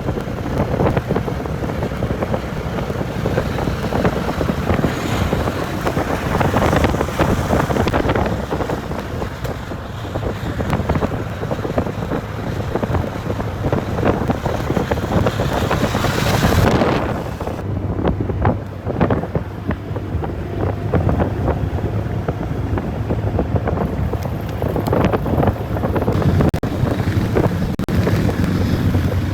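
Wind buffeting the microphone on a moving motorcycle, with the engine running steadily underneath. About sixteen seconds in, a rush swells and then cuts off, and the hiss stays lower for several seconds after.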